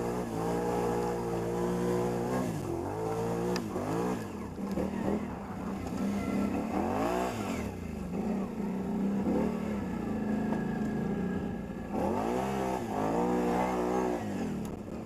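ATV engine running at idle and revved up and down several times, its pitch rising and falling in repeated swells.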